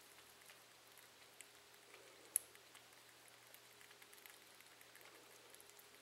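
Faint, scattered little wet clicks of a baby cottontail rabbit lapping and nibbling at a hand-held feeding syringe, with one sharper click about two and a half seconds in.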